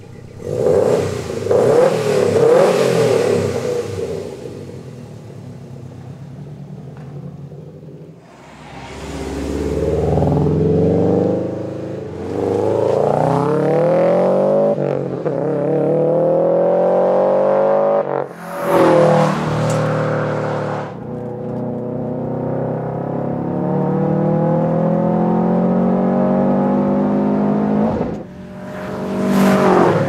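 Subaru WRX STI hatchback's turbocharged 2.5-litre flat-four through a COBB stainless steel 3-inch cat-back exhaust. It is revved up and down at a standstill, then settles to a quieter idle. About eight seconds in it pulls away and accelerates hard through several gears, the pitch climbing and then dropping at each shift, before holding a steadier note and rising again near the end.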